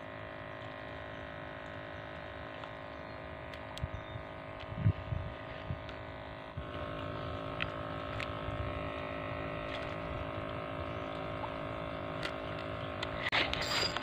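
A steady mechanical hum made of many fixed tones, getting slightly louder about six and a half seconds in. A few soft low thumps come around four to six seconds in, and a burst of rustling noise comes near the end.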